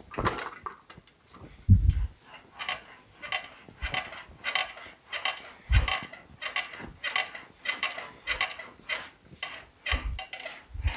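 Sheet-metal fender panel being rolled back and forth through an English wheel, a rhythmic rolling and rattling of metal at about two passes a second, with a few deeper thumps. This is wheeling out, stretching the flat panel to shape it.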